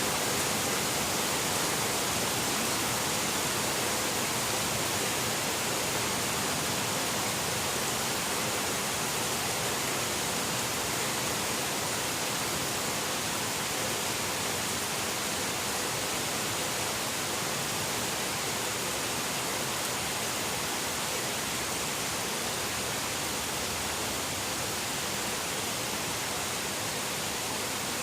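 Steady rainfall, an even hiss with no single drops or other sounds standing out.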